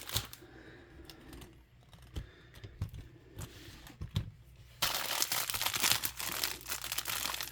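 Plastic packaging crinkling as it is handled: a few light clicks and taps at first, then continuous crinkling from about five seconds in.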